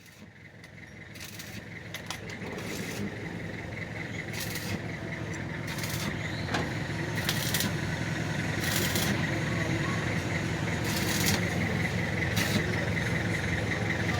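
Electric drill running steadily with a 10 mm bit, drilling out the leftover coil of a thread insert in a cylinder-head bolt hole, with short metallic scraping clicks every second or two.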